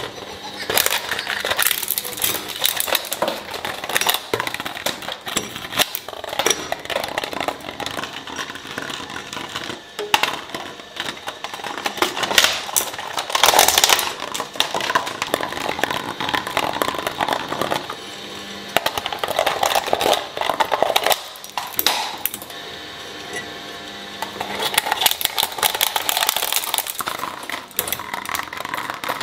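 Twin-shaft shredding machine running, its cutters snagging and tearing at a hollow orange plastic pumpkin toy that bounces on the blades. The sound is a fast, irregular crackle and clatter, loudest about halfway through, with a steadier motor hum for a couple of seconds about three quarters through.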